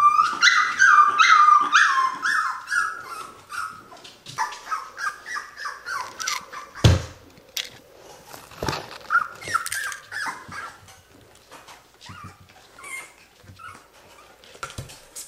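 Cocker spaniel puppy giving quick runs of high-pitched yips and little barks, loudest in the first few seconds and coming in bursts after that. A single thump sounds about seven seconds in.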